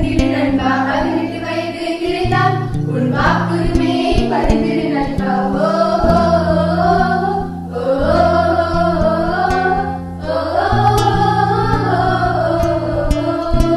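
A group of girls singing a Tamil song together into microphones, over an instrumental backing with sustained low notes that shift from one to the next.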